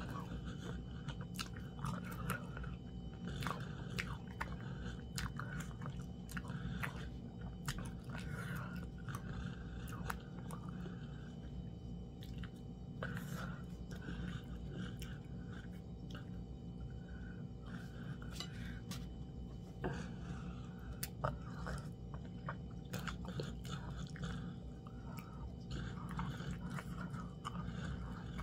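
Close-miked chewing of fufu and meat with soup: irregular small mouth clicks and chewing noises.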